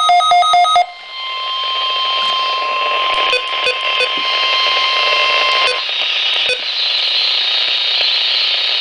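Midland weather radio's alert beeping in fast, even pulses, which cuts off about a second in. Then the weather-radio broadcast comes through as steady static hiss with a faint steady tone under it for several seconds, the alert tone of the weekly test, with a few sharp clicks.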